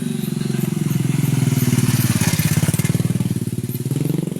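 A small engine running steadily with a rapid pulsing beat, getting louder over the first two seconds and dipping briefly near the end.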